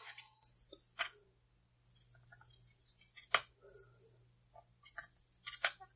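Cotton swab scrubbing the inside of a plastic power bank case while it is cleaned with alcohol, with scattered light plastic clicks and taps as the pieces are handled; the sharpest tap comes a little past the middle.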